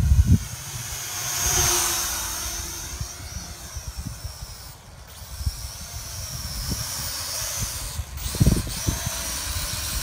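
Small X3 Pioneer quadcopter's motors and propellers whining in flight, growing louder as it passes close about a second and a half in, fading, then building again in the second half as it comes back.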